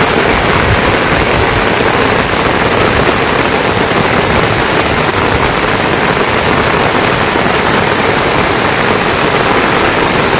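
Heavy rain pouring down steadily, a loud even hiss.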